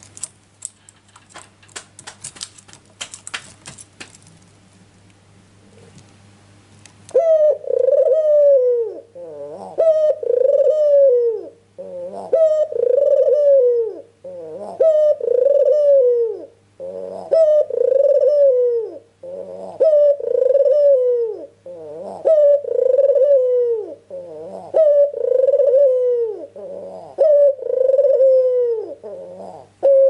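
Scattered light clicks and rattles for the first several seconds. Then a white domestic ringneck dove (puter) starts cooing steadily, about a dozen loud, repeated coos, each a rolling call that falls in pitch, roughly one every two seconds.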